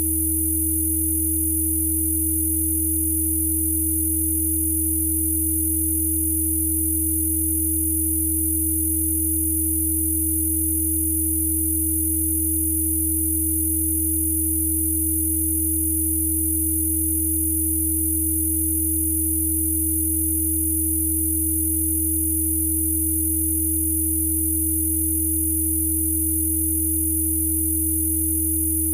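Synthesized Rife frequency tones from a Spooky2 bruxism (teeth-grinding) frequency set: several pure electronic tones layered together, with a low hum, a steady mid-pitched tone and thin high whines. They hold steady at an even loudness, with no pulses or changes in pitch.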